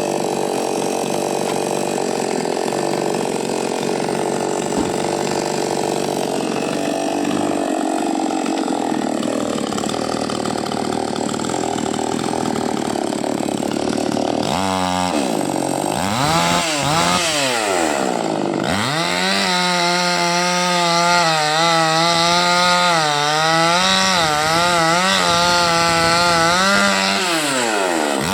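Chainsaw engine running, its revs dropping and climbing several times about halfway through, then held high with a wavering pitch before falling away at the end.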